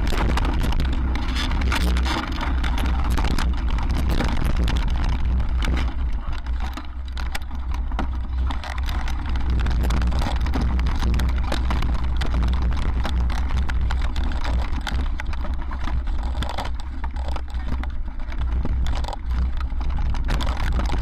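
Wind buffeting the microphone of a mountain bike's action camera at speed, with a constant rattle and knocking from the bike and its tyres over a stony trail.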